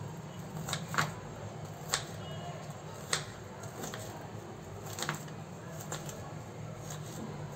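Kitchen knife slicing green-onion bulbs on a plastic cutting board: irregular sharp taps of the blade meeting the board, about six of them, the loudest about a second in and just after three seconds. A steady low hum runs underneath.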